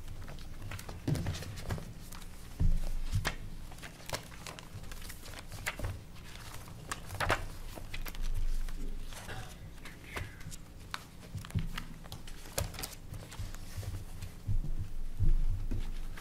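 Paper rustling and pages being turned on a meeting table, with scattered clicks and a few thumps against the table, over a steady low hum.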